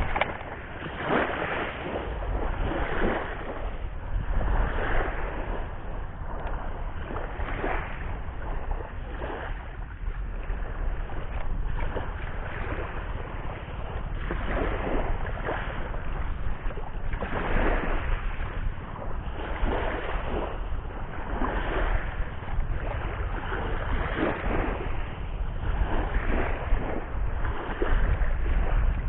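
Sea waves washing onto the shore in repeated surges every couple of seconds, with wind rumbling on the microphone.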